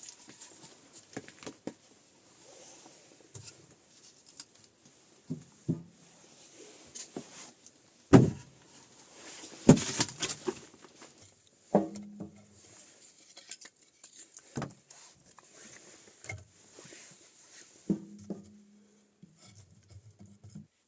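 Irregular knocks, taps and light clatter of things being handled by hand, with two louder knocks about eight and ten seconds in and a short low hum after a couple of the later knocks.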